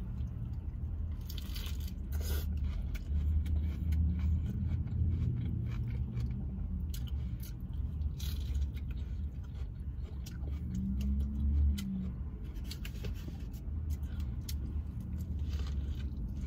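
Close-up biting and chewing of a veggie burger, with moist crackles, clicks and crunches, over a steady low rumble. About eleven seconds in there is a brief hummed 'mmm'.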